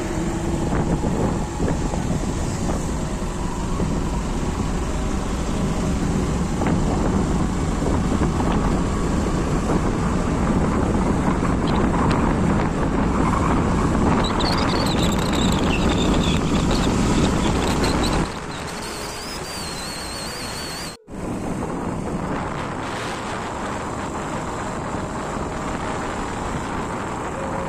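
Wind rushing over the microphone, with engine and road noise, from a moving motorcycle. It is loud and steady, then cuts abruptly to a quieter, steadier rush about eighteen seconds in, with a momentary dropout a few seconds later.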